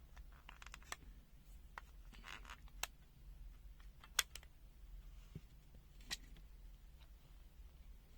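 Faint, scattered clicks and light taps from handling the small plastic and metal parts of an opened digital multimeter, about six in all with the sharpest about four seconds in, over a low steady hum.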